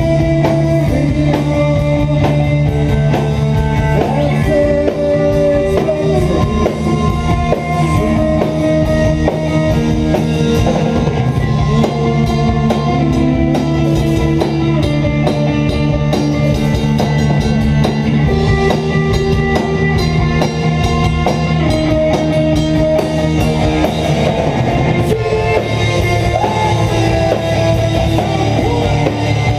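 Live rock band playing loud: electric guitar lines with held notes over bass guitar and a drum kit, continuous throughout.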